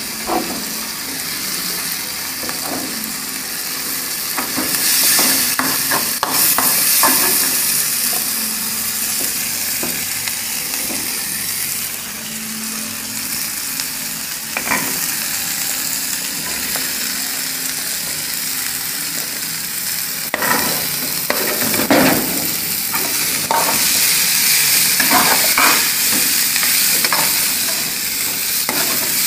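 Chopped onion, garlic and green pepper sizzling in a hot metal frying pan, stirred with a metal spoon that scrapes and knocks against the pan. Diced calabresa sausage goes in partway through, and the sizzle is louder over the last few seconds.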